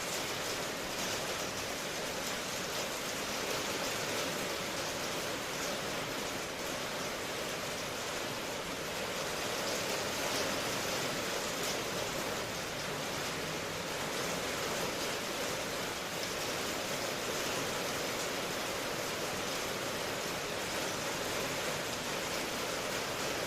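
Steady rain falling in an even hiss, with no thunder or other events.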